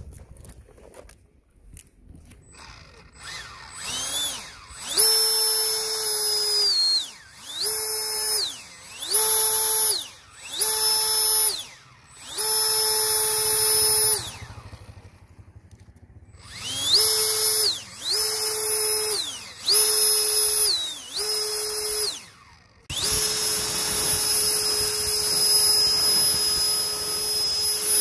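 FMS 70 mm 12-blade electric ducted fan with a 1900KV motor on 6S, whining in about ten short throttle bursts: each one spins up to a steady high pitch for a second or two and winds back down. Near the end it holds full speed for about five seconds.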